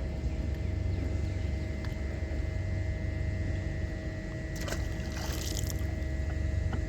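A fishing boat's steady low rumble with a faint constant hum, and a brief splash of water about two-thirds of the way through.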